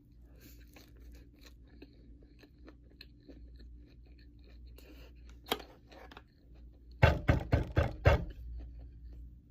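Close-miked chewing of a sushi roll: soft, wet mouth clicks, one sharper click about halfway, then about five loud knocks in quick succession near the end.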